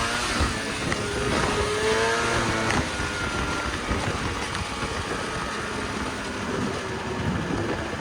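Snowmobile engine running while under way, a steady mechanical drone with pitch that rises and falls slightly in the first few seconds.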